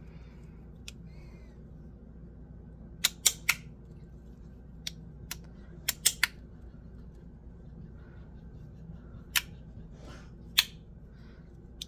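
Magnetic bean slider fidget toy clicking as its halves are slid and snapped into place by the magnets: about a dozen sharp clicks at irregular intervals, some in quick pairs and triples.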